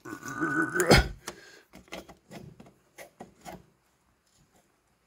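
Blue-handled pliers clicking and scraping against the steel parts at an ATV's front spindle, with one loud sharp click about a second in. Several lighter clicks follow over the next few seconds.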